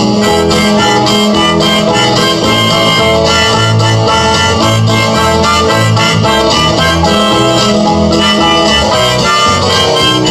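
Harmonica played through a handheld microphone cupped against it, carrying a tune over a backing track with guitar and a repeating bass line.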